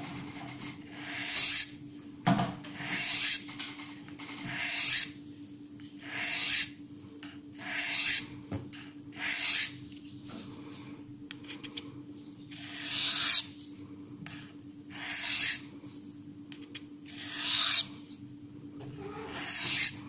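Spyderco Paramilitary 2's CPM S30V steel blade drawn lightly along a Victorinox ceramic sharpening rod: about ten separate hissing strokes, each under a second, roughly one every one and a half seconds, with a pause of a few seconds in the middle. The light honing strokes refresh a used, dulled edge.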